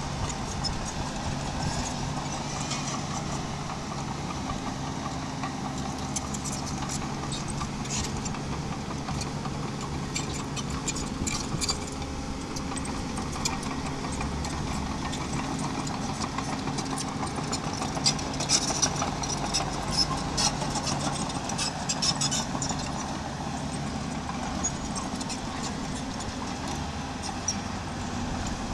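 Small bulldozer's diesel engine running steadily, with stones clattering and scraping as they are pushed, the clatter busiest from about ten to twenty-two seconds in.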